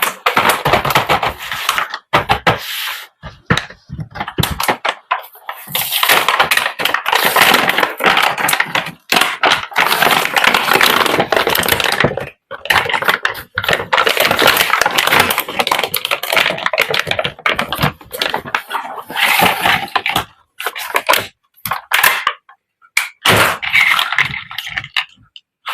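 Crinkling and rustling of plastic and packaging in close, handled bursts, with many small clicks and knocks of hard plastic toy pieces.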